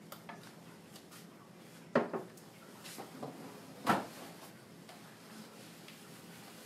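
Two sharp knocks about two seconds apart, with a few lighter clicks and clatter around them: items being handled and set down, or a drawer or cupboard shutting.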